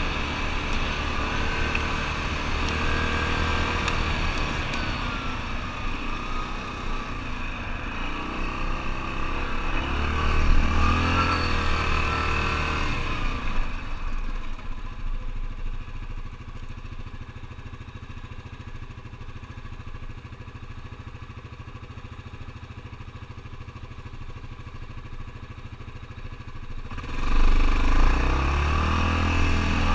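ATV engine running under changing throttle, its pitch rising and falling. About halfway through it drops back and runs low and quieter for a stretch, then revs up hard again near the end.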